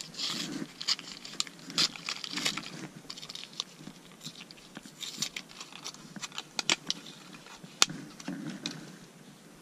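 Paper-and-card packaging of a Rooster Tail spinner lure being torn open and crinkled by hand, a run of small, sharp crackles and clicks, with one sharper snap a little before the end.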